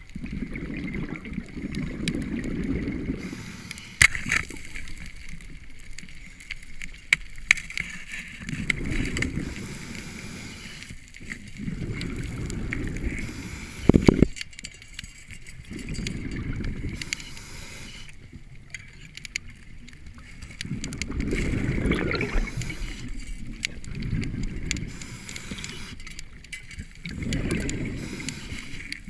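A scuba diver's regulator breathing underwater: exhaled bubbles rumble in swells of two or three seconds, recurring every few seconds. Sharp clicks and knocks sound in between, the loudest about halfway through.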